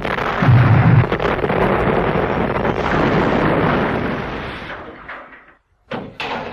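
Cannon-fire and explosion sound effects from a pirate-ship battle: a loud, dense din that dies away about five seconds in, then a short sharp burst near the end.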